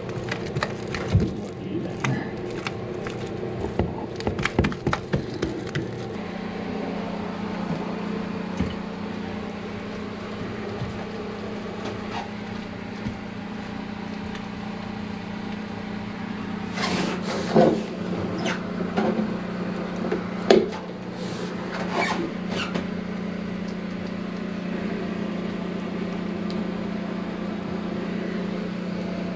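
Rustling, crinkling handling noise from gloved hands pressing and smoothing fiberglass cloth into a boat's hull-to-deck joint, with short clusters of crackles and squeaks. A steady low hum comes in about six seconds in and carries on under it.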